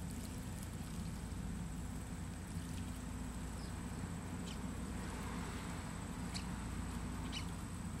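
House sparrows splashing in a bird bath, with about four short chirps in the second half and a burst of splashing a little past halfway, over a steady low hum.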